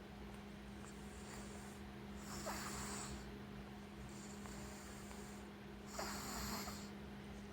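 Snoring in sleep: four raspy breaths, about one every one and a half seconds, over a steady low hum.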